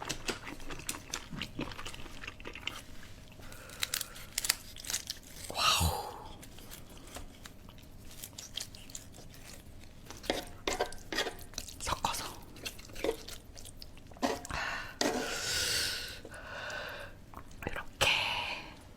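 Close-up eating sounds: food being chewed and crunched, with many short wet clicks and a few longer noisy bursts.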